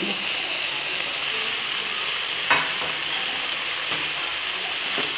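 Chicken, cabbage and capsicum frying in a hot pan: a steady sizzling hiss, with a single light click about halfway through.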